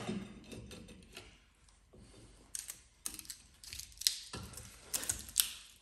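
Scattered sharp metallic clicks and knocks of hand tools working on seized rear drum brake parts, in short irregular bursts. The parts are rusted solid.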